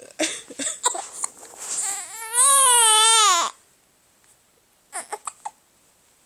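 A baby crying: short sobs, then one long wavering wail, the loudest part, starting about two seconds in, and a few more short sobs near the end.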